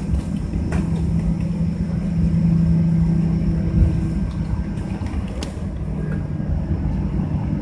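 Cabin noise of a Boeing 737-900ER taxiing, heard from inside the cabin: a steady low rumble with a constant hum. A higher tone joins about a second in and fades out around four seconds, while the sound swells slightly. A faint click comes about five and a half seconds in.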